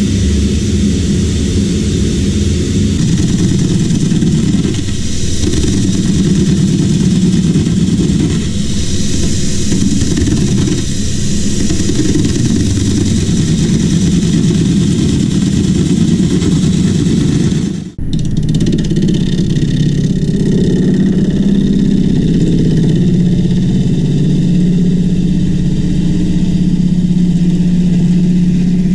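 Wood lathe running with a gouge cutting into a spinning grey alder log, a steady low drone with a hissing cut as the wood is roughed round and shaped. It breaks off very briefly about eighteen seconds in, then carries on.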